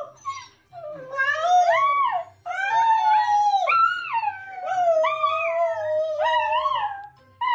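A woman and a small dog howling together: long, wavering howls that slide up and down in pitch, one held note running into the next.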